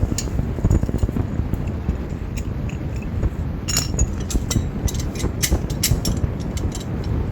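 Metal parts clinking and scraping, with a run of light, quick clinks in the second half, over a steady low rumble of wind on the microphone.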